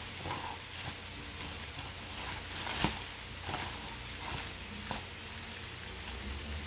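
Clear plastic wrapping crinkling and rustling in short bursts as shoes are handled and lifted out of a cardboard shoebox, with one sharper crackle about three seconds in, over a steady hiss.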